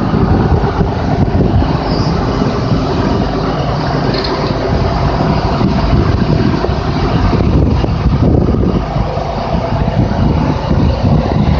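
Diesel switcher locomotive running under load as it moves off, a steady low engine throb with rolling rail noise, towing a dead steam locomotive.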